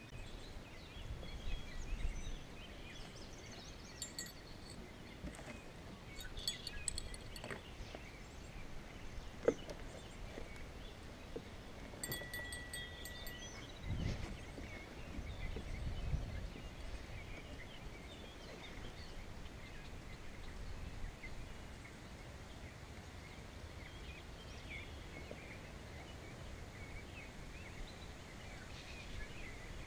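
Quiet outdoor pondside ambience with faint high bird chirps a few times. About halfway through come a couple of soft low thumps.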